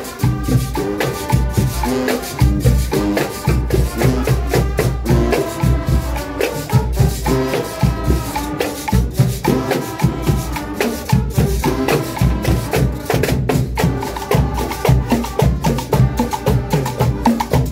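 Marching band playing a cumbia: trumpets, saxophones and a sousaphone carry the tune over bass drum and percussion keeping a steady, even beat.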